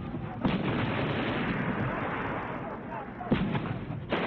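Battle sounds: continuous heavy gunfire and artillery, with sharp blasts just under half a second in and, loudest, a little past three seconds in.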